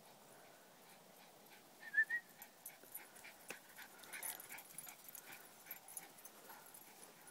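Two short, high squeaks about two seconds in, from a Boston Terrier and her squeaky ball, followed by a run of soft clicks and rustling.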